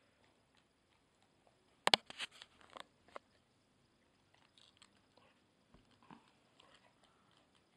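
A Rottweiler mouthing and biting at oranges on a plate. A sharp knock comes about two seconds in, then several quicker clicks over the next second, then fainter scattered clicks.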